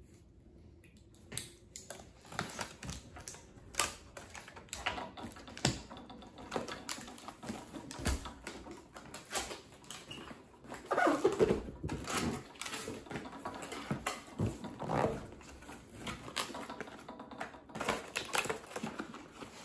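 Cardboard box being opened by hand: irregular clicks, taps and scratches of fingers on the cardboard and tape as the flaps are worked open, with a denser scraping stretch about eleven seconds in.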